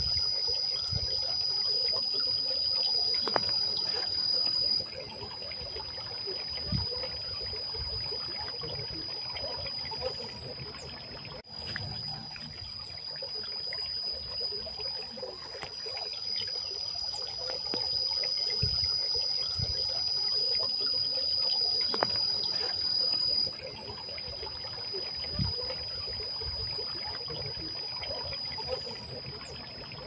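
Water trickling and splashing down the tiers of a stone garden fountain, with a steady high-pitched whine over it that turns quieter twice and comes back.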